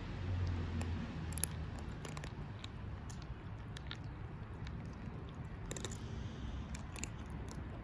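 Cats eating dry kibble: scattered sharp crunches as they chew, over a low background rumble.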